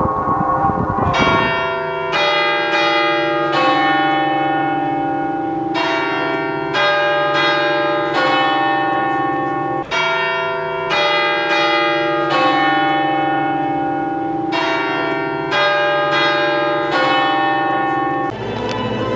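Church bells ringing a peal: a run of overlapping strikes, each left ringing, one after another. Near the end the bells give way to organ music.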